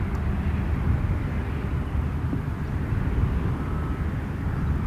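Wind buffeting an outdoor microphone: a steady low rumble.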